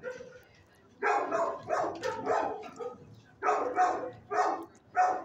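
Dogs barking in quick runs of three to five barks, about three a second, beginning about a second in.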